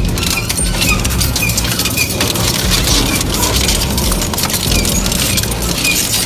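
Industrial crushing machine grinding material: a dense run of crackling and cracking over a steady low machine drone, with short high squeaks recurring throughout.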